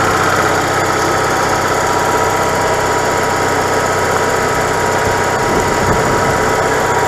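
RV generator engine running steadily at an even pitch, with a thin high whine over it, warming up after sitting unused for months. Its fuel line clamps have just been tightened to stop the air leaks that kept the fuel pump from holding its prime.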